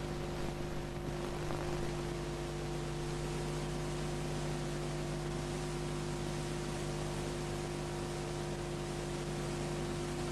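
Steady electrical hum under an even hiss, starting abruptly out of silence: the background noise of a mid-1980s videotape recording.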